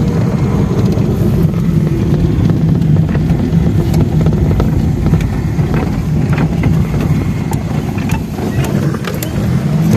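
Motor vehicle on the road: a steady, loud low engine and road rumble, with scattered light clicks and rattles.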